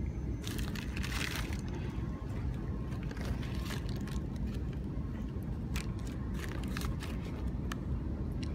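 A plastic snack bag crinkling as it is handled, loudest for about a second near the start, then scattered crackles, over a steady low rumble.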